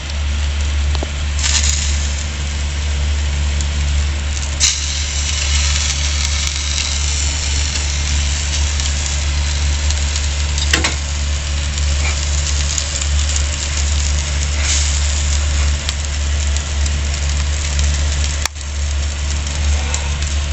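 Meat sizzling and crackling over a small charcoal or wood fire pit, an even hiss with scattered sharp pops. Beneath it runs a loud, steady low rumble.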